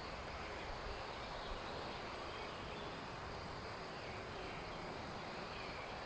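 Steady rain falling, an even hiss, with faint high chirps in the background.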